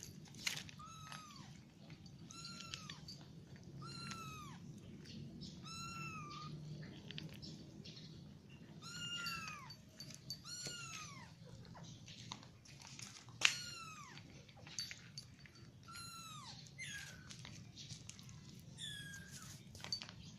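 Cat mewing over and over: short, high-pitched mews that fall in pitch, about one a second, with a pause of a second or two partway through.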